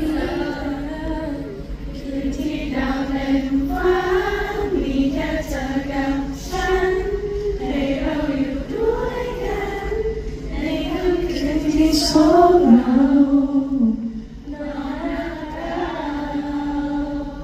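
Many voices singing a slow melody together in unison, with held notes and no clear beat.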